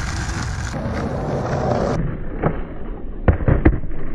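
Skateboard wheels rolling on tarmac, with a quick run of sharp wooden clacks a little over three seconds in as the board pops and hits the ground during a trick.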